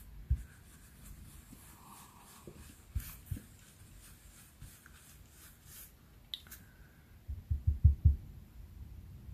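Quiet handling sounds from a round blending brush being worked over cardstock and paper masks: faint rubbing with a few soft knocks, then a short run of low thumps near the end.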